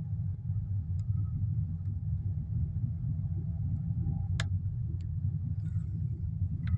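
Steady low rumble of a 2017 Hyundai Tucson diesel heard from inside the cabin while driving slowly in second gear of its seven-speed dual-clutch gearbox. A faint whine stops with a click about four seconds in, and the revs fall near the end as the gearbox shifts up to third.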